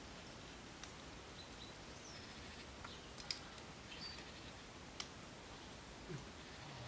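Quiet outdoor background with brief bird chirps and three sharp clicks, the loudest about three seconds in.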